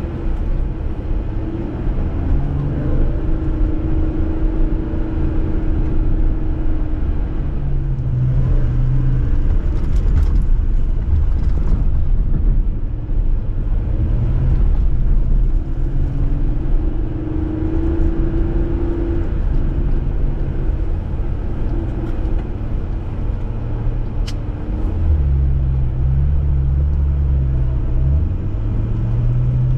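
Jeep engine running under way, a heavy low rumble with the engine note rising and falling several times as the revs change.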